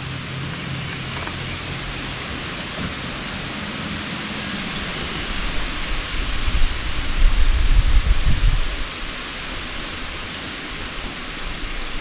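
Steady, even outdoor hiss with no clear single source, with a louder low rumble for about two and a half seconds past the middle.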